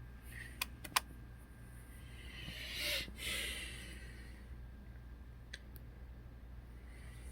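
A few sharp key clicks on a Dell Precision 7710 laptop keyboard as a Wi-Fi password is typed in, with a brief soft hiss around the middle over a low steady hum.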